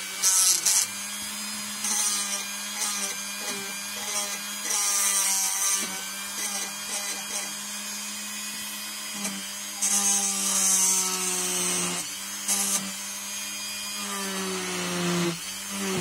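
Dremel rotary tool running at low speed with a felt polishing wheel, buffing a steel lock pick with red polishing compound. The motor gives a steady whine, with a burst of hiss each time the wheel is pressed onto the metal, about five times. The pitch sags slightly under load near the end.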